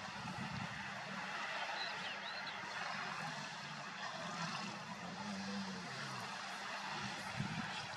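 Walruses making low, rumbling snores and grunts that come and go, over a steady rushing background noise.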